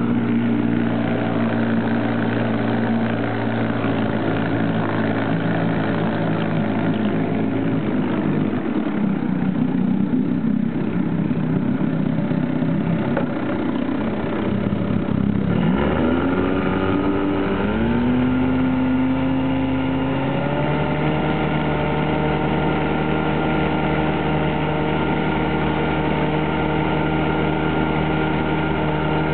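1952 Scott-Atwater two-stroke outboard motor running under way. About halfway through, its pitch rises in a few steps as it speeds up, then holds steady at the higher speed.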